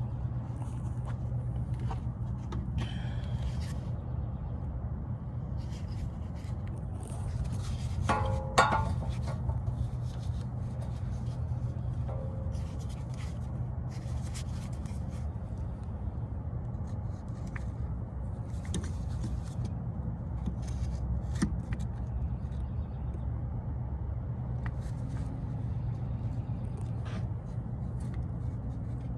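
Scattered scrapes and clicks of metal parts being handled as an electric parking-brake actuator is fitted onto a rear brake caliper. A ringing metallic clink comes about eight and a half seconds in. A steady low hum runs underneath.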